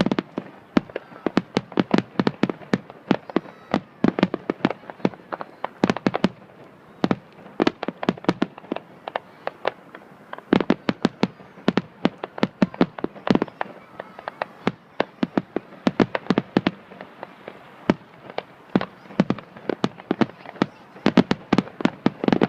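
Aerial fireworks show: a rapid, continuous barrage of shell bursts and crackling reports, several bangs a second, with brief lulls about seven and ten seconds in.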